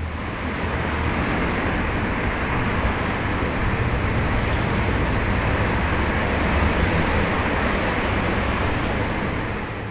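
City street ambience: a steady wash of traffic noise, fading out at the end.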